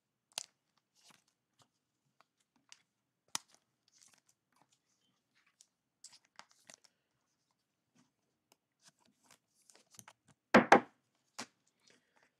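Thin plastic card sleeves crinkling and rustling as trading cards are handled and slid into them, with scattered light clicks and a louder double knock about ten and a half seconds in.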